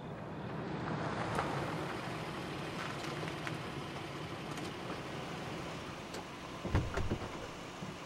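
Car driving: steady engine and road noise, with a couple of low thumps near the end.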